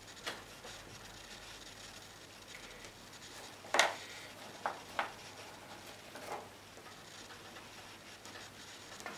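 Handling sounds of drawing at an easel: faint rubbing and scratching of marker and pastel on paper, with about five short sharp clicks and knocks, the loudest a little before the middle.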